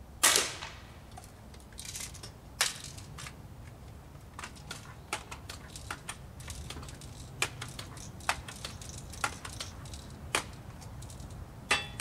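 Pneumatic pump air rifle firing: one loud sharp crack about a quarter-second in, then a string of lighter clicks and a few sharper knocks, the strongest of them near the end.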